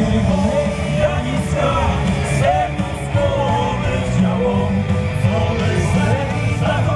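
Amplified band music from an outdoor stage PA, with a singer's voice over a steady bass and drums.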